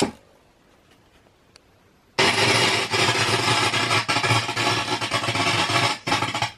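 Line 6 Spider IV 150 stereo amp head crackling loudly through its loudspeakers with no guitar plugged in. It is a fault whose cause the owner doesn't know, perhaps a capacitor gone bad. A short click opens it, then quiet; about two seconds in, a dense crackle sets in and runs for about four seconds before stopping near the end.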